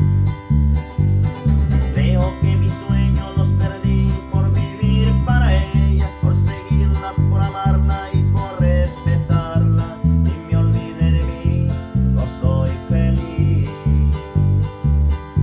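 Music: guitar playing over a steady, heavy bass beat of about two pulses a second, with a melody line above it.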